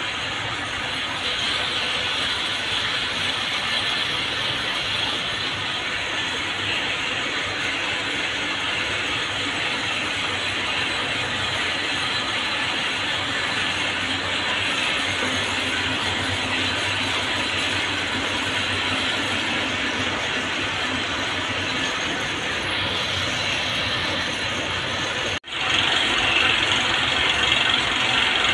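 Steady mechanical din of cord-making machines running, with spinning bobbins on a yarn twisting frame. A brief break near the end, after which the machinery is louder.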